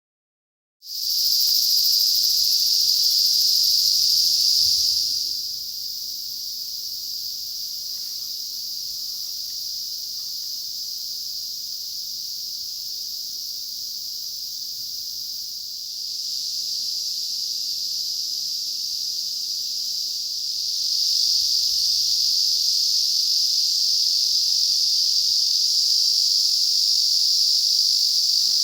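Dense, steady chorus of summer insects, a continuous high-pitched shrill hiss. It becomes quieter about five seconds in and louder again after about twenty seconds.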